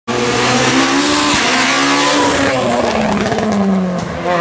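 Peugeot 207 rally car's engine running hard at high revs, the pitch sagging over the second half as the car comes through a hairpin. A short high tyre squeal comes about halfway through.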